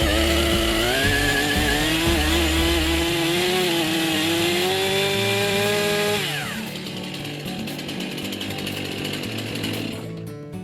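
Chainsaw running at high revs, its note climbing slowly. About six seconds in the revs drop away quickly and the saw falls back to a lower, quieter sound.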